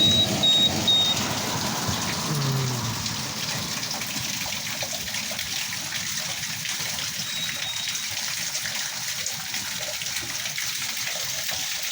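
Water running steadily down through a drain that has just been cleared of a weed blockage, with a few louder bumps in the first second.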